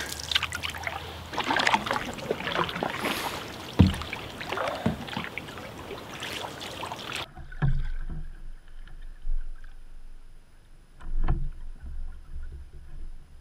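Open canoe being paddled with wooden paddles: water splashing and dripping off the blades, with reeds and branches rustling and crackling against the canoe and paddle. About seven seconds in the sound drops suddenly to quieter paddling, with a couple of dull knocks.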